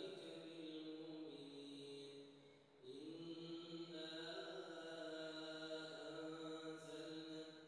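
A male reciter chanting the Quran in slow, melodic tajweed, holding long notes that glide between pitches, with a short breath pause about two and a half seconds in.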